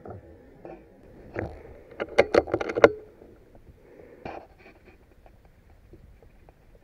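Handling noise from a PCP air rifle: a quick run of six or seven sharp clicks and knocks about two seconds in, with a few softer knocks before and after.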